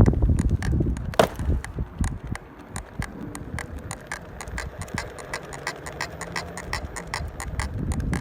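Onewheel electric board making a loud repeating click, about three to four clicks a second, with one louder click about a second in: an abnormal noise from a board with only 23 miles on it. A low rumble sits under the clicks, stronger at the start and near the end.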